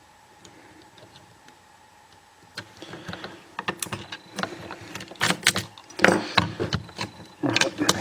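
Clicks and rattles of a clear plastic disc detainer training lock and its pick tool being handled. A few faint ticks at first, then from about two and a half seconds in a busy run of sharp, irregular clicks.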